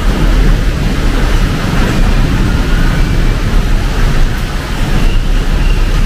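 Heavy rain pouring down steadily, mixed with the noise of city road traffic.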